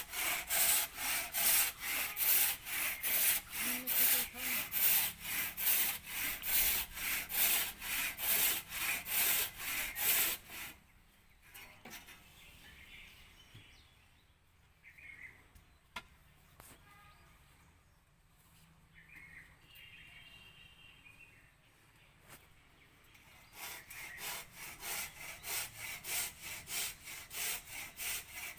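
Hand saw cutting through timber in quick, even strokes, about two or three a second. The sawing stops about ten seconds in, leaving a quiet stretch with a few faint scattered sounds, and starts again near the end.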